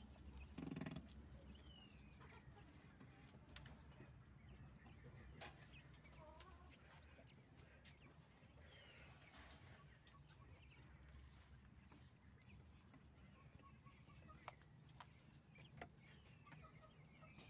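Faint, scattered short chirps and soft calls of penned poultry, over a low steady hum.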